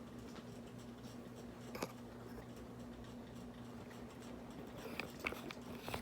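Harbor Breeze Armitage ceiling fan running on high with a steady low hum. There is a light click about two seconds in and a few more near the end.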